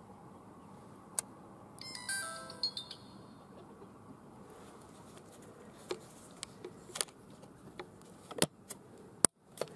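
A trail camera playing a short electronic chime of tones stepping down in pitch as it switches off, its screen going dark. Plastic clicks and knocks follow as its hinged case is closed and latched, the loudest two near the end.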